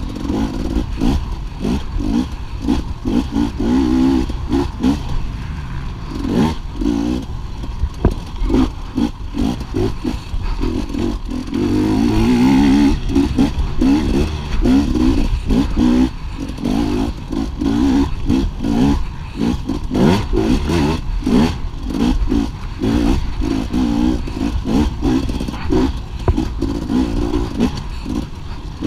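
250 cc off-road dirt bike engine heard from onboard, revving up and falling back over and over as the rider works the throttle, with clatter and knocks from the bike running over rough terrain.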